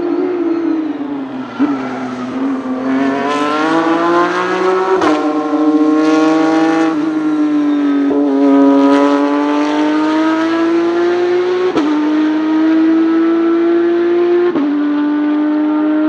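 Porsche 911 GT3 Cup race car's flat-six engine at high revs, accelerating hard: the pitch climbs in each gear and drops back at several sharp upshifts.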